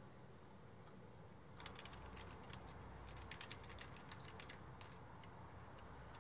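Typing on a computer keyboard: a quick run of key clicks that starts about a second and a half in and stops about five seconds in.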